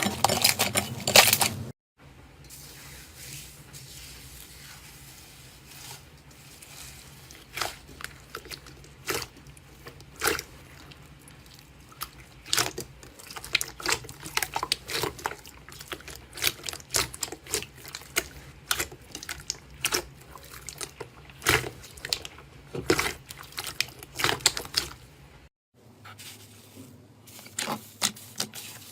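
Slime being squeezed and pressed by hand, making irregular wet clicks and pops.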